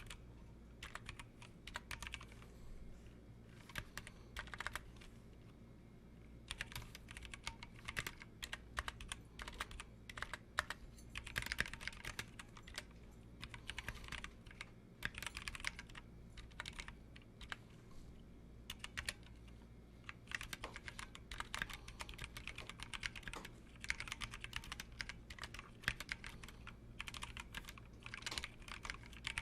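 Typing on a Massdrop ALT High Profile mechanical keyboard with Halo True switches in their stock, unlubed, unmodded state: uneven runs of rapid keystroke clicks, busier in some stretches than others. A faint steady low hum sits underneath.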